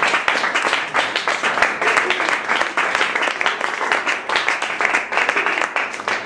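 Audience applauding, a dense patter of many hands clapping that stops abruptly at the very end.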